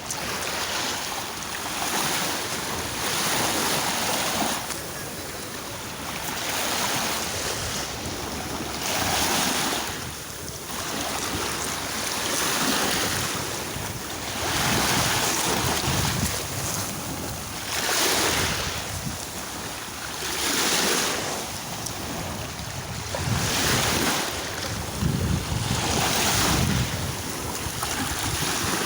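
Sea waves breaking and washing on the shore, each surge swelling and falling away every two to three seconds, with wind buffeting the microphone.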